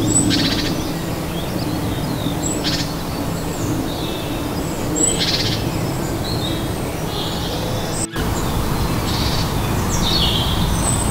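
Woodland birdsong: several small birds calling, with short rapid trills repeated a few times, over a steady low background hiss.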